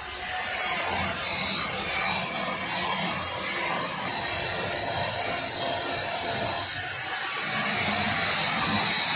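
Water fountain running: a steady rush of falling, splashing water.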